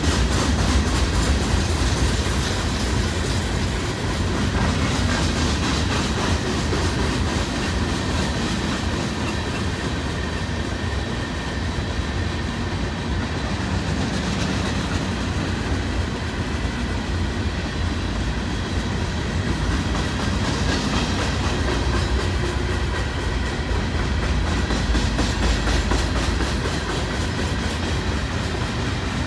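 Open-top hopper cars of a freight rock train rolling past: a steady low rumble of steel wheels on rail with a continuous clickety-clack.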